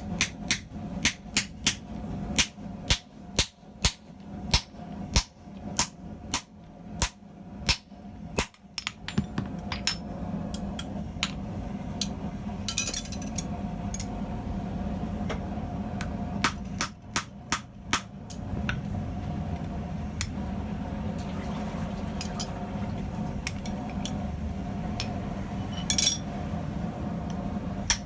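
Hand hammer striking the head of a hot 8 mm steel rivet set in a rivet header on the anvil, about two ringing blows a second for the first nine seconds, then scattered blows with a quick run of taps after about seventeen seconds. A steady low hum runs underneath.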